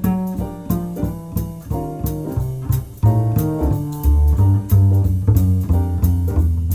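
Jazz background music led by piano, with a steady beat and a bass line that gets heavier about four seconds in.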